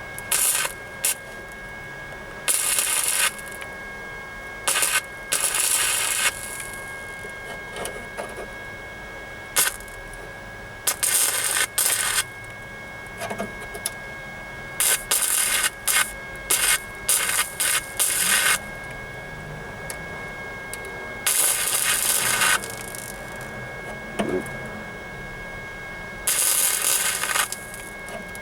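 Flux-core wire-feed welder laying short spot welds on a sheet-steel floor pan patch: about a dozen separate bursts of arc noise, each a fraction of a second to over a second long, with pauses between. A faint steady whine runs underneath.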